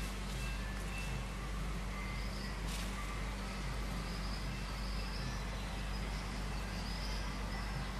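Steady outdoor background noise with a low hum, scattered faint short high chirps, and a single brief crack about three seconds in.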